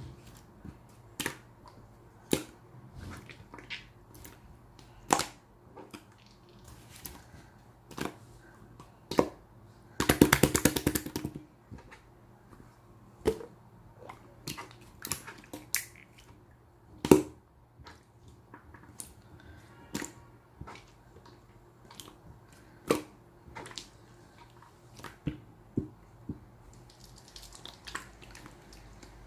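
Clear, colourless slime being handled: scattered sharp clicks and pops as it is pressed and pulled, with a dense run of rapid crackling pops about ten seconds in, the loudest part.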